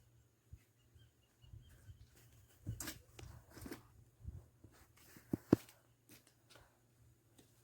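Sticks of firewood knocking and clattering as they are handled and stacked, with two sharper knocks about five and a half seconds in. A few faint high chirps near the start.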